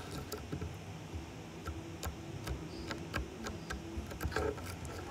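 Irregular small clicks and taps of fingers handling a phone close to its microphone, over low rumbling handling noise.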